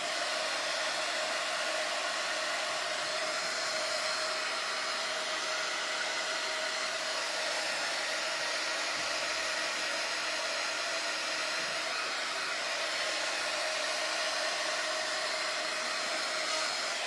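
An electric blower running steadily: an even, hair-dryer-like whir with a faint steady hum.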